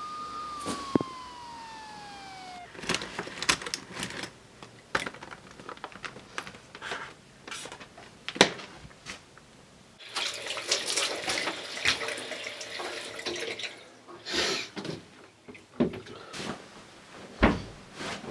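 A steady high tone slides down in pitch and stops a few seconds in. Scattered clicks and knocks follow. In the middle, a tap runs into a bathroom sink for about four seconds while someone washes, and more clicks and thuds come after it, the loudest near the end.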